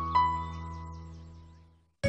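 The closing note of a short cartoon title tune, held and slowly fading away.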